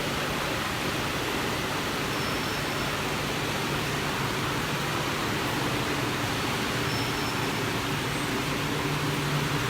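Automatic PP woven-bag cutting and sewing machine running: a steady machine noise with a faint low drone.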